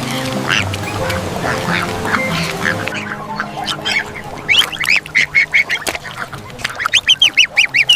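A duckling quacking in quick runs of short, high calls, over soft background music that drops away about three seconds in.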